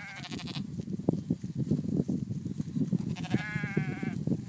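Faroese sheep bleating twice: one call ending about half a second in and another of about a second near the end, over irregular low thuds and rustling from the flock crowding close.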